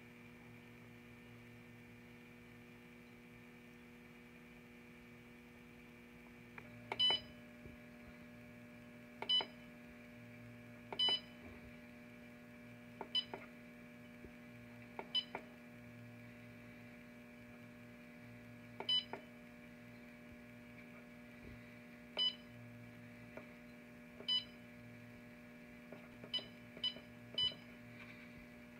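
Keypad beeps from the Set-Pro digital temperature controller of an Evenheat heat-treating kiln as its buttons are pressed to program the hardening cycle: about eleven short beeps at uneven intervals, starting about seven seconds in, the last three in quick succession. A steady low electrical hum runs underneath.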